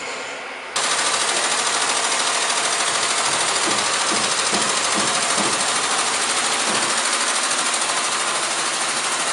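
A loud, steady rushing noise with a fast even pulse switches on abruptly about a second in and holds at the same level.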